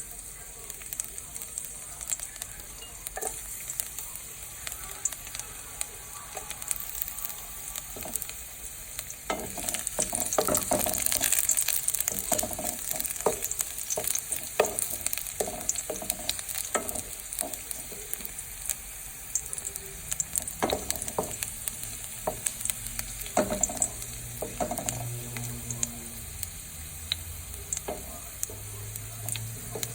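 Vegetables sizzling in a hot pan while being stir-fried, the utensil knocking and scraping against the pan many times. The sizzle swells for a few seconds about ten seconds in.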